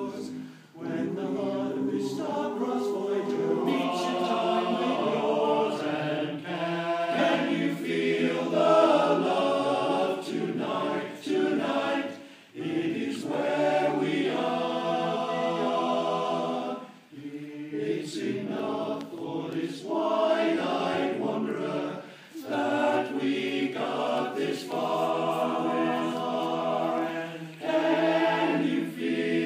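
Large men's chorus singing a cappella in harmony, with short breaks between phrases.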